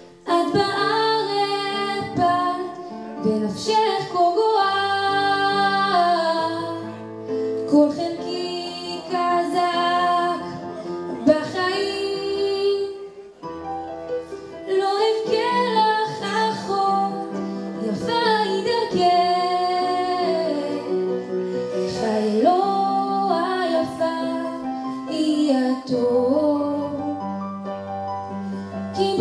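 A young woman singing a Hebrew song into a microphone over an instrumental accompaniment of held low notes and chords.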